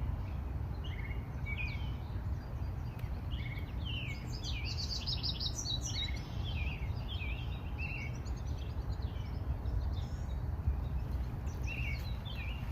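Several songbirds chirping and singing, with a quick run of rapid notes about four to six seconds in, over a steady low background rumble.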